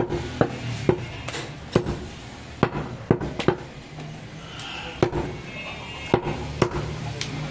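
Butcher's heavy knife chopping mutton on a wooden chopping block: about a dozen sharp chops at an uneven pace, with a longer pause about halfway through.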